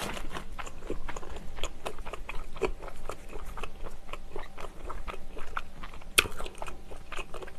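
Close-miked biting and chewing of a sausage onion bread roll: a steady run of short mouth clicks, with one sharper click about six seconds in.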